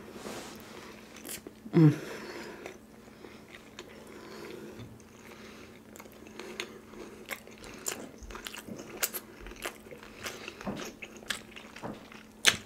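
Close-miked chewing of crispy fried chicken: crunching of the breaded skin and wet mouth clicks. About two seconds in there is a short hum from the eater.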